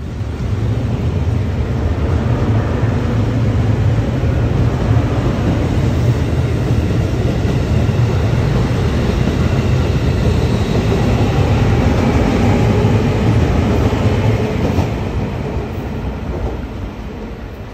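Red Huis Ten Bosch limited express electric train running past close by: a steady, loud rumble of wheels on rails that builds in the first second and fades over the last few seconds.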